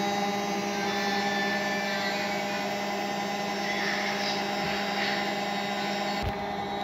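Steady hum of a running household appliance, holding several fixed tones, with faint running tap water and splashing of hands being washed under it.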